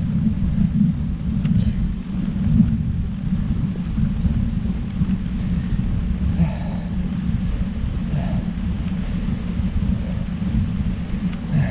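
Low, steady rumble of wind buffeting the microphone while riding a road bike, with a couple of faint ticks.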